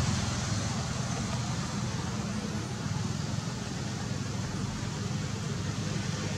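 Steady rumble and hiss of road traffic, with no single sound standing out.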